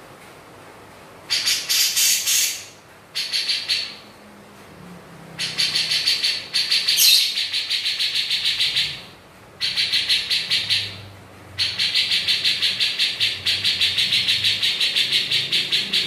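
Cucak jenggot (grey-cheeked bulbul) calling in bursts of fast, repeated high chattering notes, the 'ngepik' call. Short bursts come with pauses between them, then a longer unbroken run in the last few seconds.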